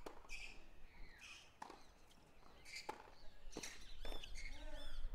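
Tennis rally on a hard court: several sharp racket-on-ball hits and ball bounces, spaced about a second apart. Short high chirps or squeaks come between the hits.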